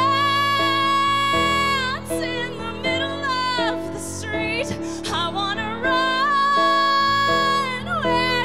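A woman singing long, belted held notes with vibrato over piano accompaniment: one sustained high note at the start, shorter phrases, then another long held note from about five and a half seconds in.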